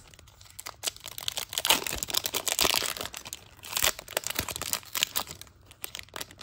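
A baseball card pack wrapper being torn open and crumpled by hand: irregular crinkling and crackling, loudest a couple of seconds in.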